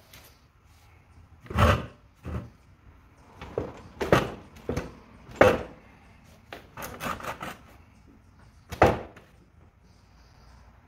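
Metal battery tray of a Ryobi 480e electric riding mower, loaded with its factory batteries, being pulled out in short jerks: a series of irregular scrapes and knocks, the loudest about a second and a half in, around five and a half seconds and near nine seconds.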